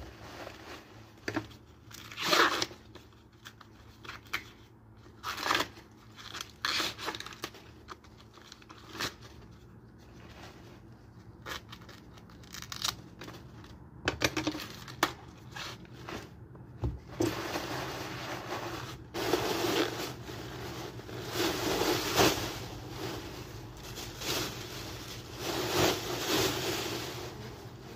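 Green corn husks being torn and stripped off ears of corn by hand, in short sharp rips. About halfway through it turns into a longer, denser rustling and crinkling as the husks are handled and stuffed into a black plastic bin bag.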